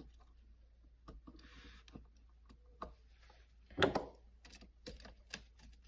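Small clicks, taps and rustles of wires and a plastic electrical receptacle being handled while wiring it, with a louder knock about four seconds in.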